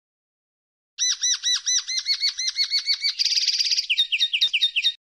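Common linnet singing one song phrase: a run of quick repeated twittering notes, about seven a second, then a short fast buzzy trill, then a few falling notes. It starts about a second in and cuts off abruptly near the end.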